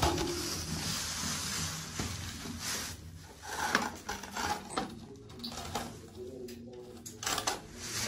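Scraping and rustling of movement, with a few sharp clinks and knocks in the second half.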